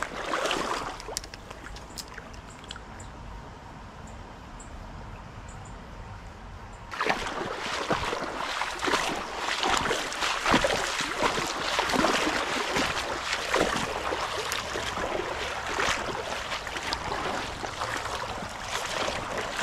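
Creek water running and trickling, fairly quiet at first with a few light clicks; about seven seconds in it turns suddenly much louder and busier, with close splashing and gurgling.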